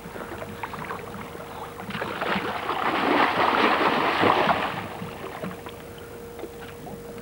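Water splashing around a snorkeller swimming and diving beside a yacht, with light lapping throughout that swells into a burst of heavier splashing from about two to five seconds in.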